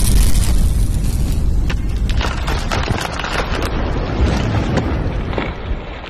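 Intro sound effect: a deep boom and rumble with a run of sharp crackles over it, fading away near the end.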